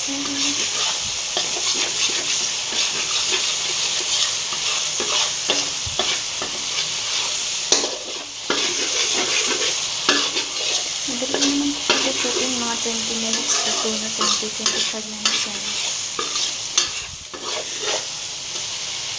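Curry paste of curry powder, garlic and oil sizzling steadily in a stainless steel pan as a metal spoon stirs and scrapes it around. The paste is being fried until the oil separates out.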